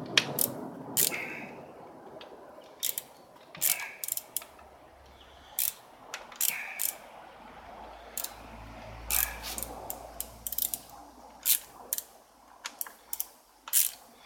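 Hand tools working on engine metal: irregular sharp metallic clicks and clinks, a dozen or more spread unevenly, with a faint low hum in the middle.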